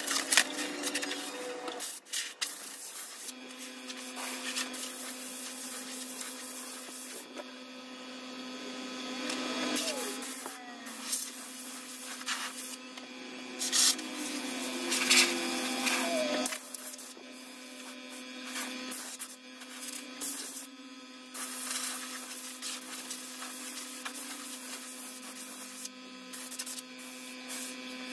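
Rustling, rubbing and knocking as a large shadow box frame and its protective sheet are handled on a work table, with a steady hum running underneath from about three seconds in.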